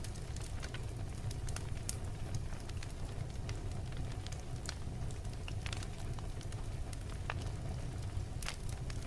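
Wood fire burning in a fireplace: scattered sharp crackles and pops, irregularly spaced, over a steady low rumble.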